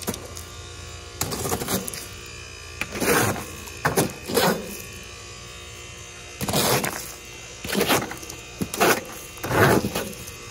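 Ice being knocked and shaken loose from the frozen coil of a Rheem heat pump's outdoor unit: about eight short, loud clattering bursts, starting about a second in, over a steady low hum.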